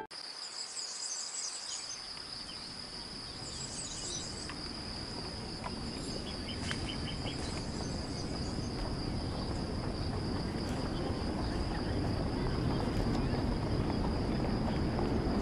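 Outdoor nature ambience of insects making a steady high-pitched drone, with brief bird chirps about a second in and again about four seconds in. A low background rumble of noise slowly grows louder toward the end.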